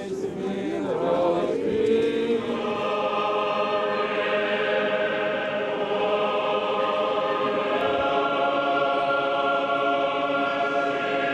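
Orthodox liturgical choir singing unaccompanied in slow, sustained chords, with the chord changing about eight seconds in.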